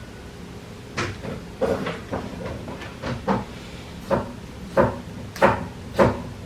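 African grey parrot knocking and banging a toy against a wooden shelf: an irregular run of about nine sharp knocks.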